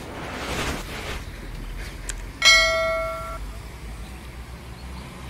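A single bell-like metallic ring, struck sharply about halfway through and dying away within about a second, after a short rush of noise near the start.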